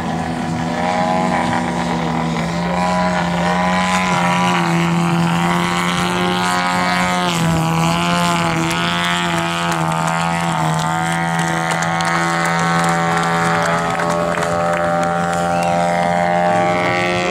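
Engine and propeller of a 60%-scale radio-controlled aerobatic airplane, a large two-stroke gasoline engine, running hard in flight. The pitch stays mostly steady and wavers up and down around the middle as the plane manoeuvres.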